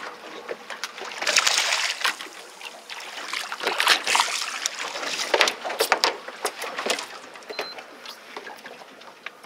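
Water splashing aboard a fishing boat in two noisy spells, one about a second in and a longer one from about three and a half to seven seconds, with sharp spattering clicks.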